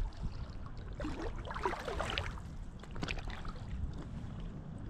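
Small waves on a lake lapping and splashing close to the microphone, over a steady low wind rumble.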